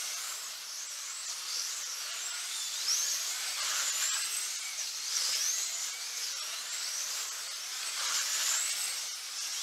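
GTP-class 1/24-scale slot cars racing, their small electric motors whining high and sweeping up and down in pitch about once a second as the cars speed up and slow down around the track.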